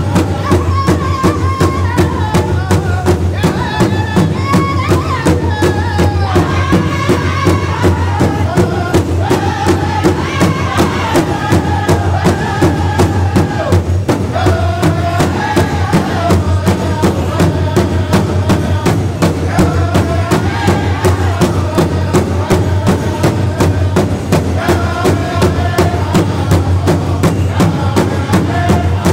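Powwow drum group singing in unison over a steady beat struck together on a large hide drum. The voices rise and fall in a chanted melody throughout, with the drumbeat evenly spaced underneath.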